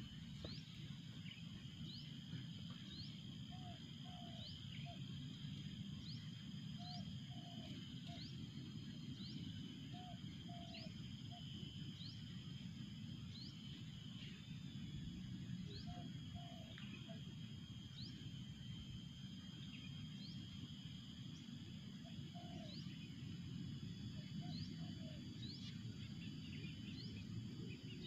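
Spotted dove cooing in short phrases, about six times, over a steady high insect drone and a faint high chirp repeated about once a second.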